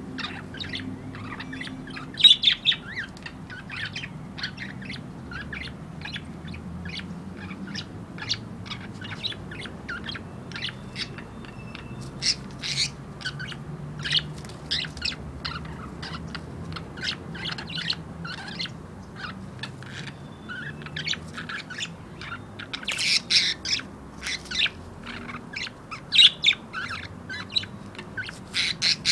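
Budgerigars chirping and chattering, a rapid unbroken run of short sharp calls with louder flurries about two seconds in and again near the end: the agitated calls of budgies squabbling over a hen.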